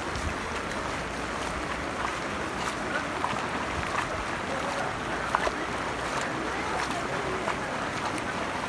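Steady rush of a swollen flood river's water, with faint distant voices now and then.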